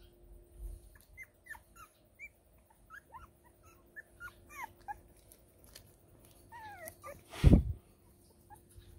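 Five-week-old Border Terrier puppies whimpering and yipping in many short, high squeaks. A longer falling whine comes about six and a half seconds in, followed by a single loud thump.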